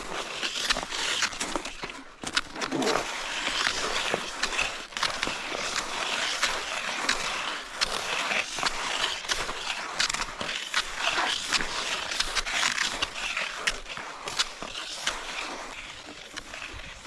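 Skis scraping and swishing steadily over packed snow, with irregular sharp crunches of pole plants and ski strides.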